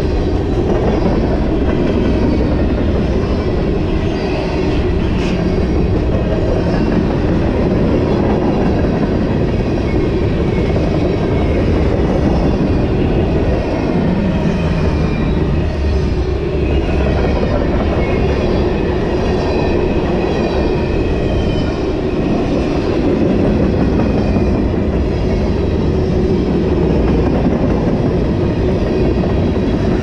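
Freight train of covered hopper cars rolling past at speed: a steady, loud rumble of steel wheels on rail with a regular clickety-clack.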